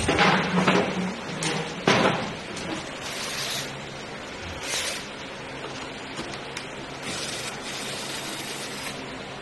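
Hard clinks and knocks of metal parts being handled, three sharp ones in the first two seconds, followed by a few brief rustling, scraping sounds.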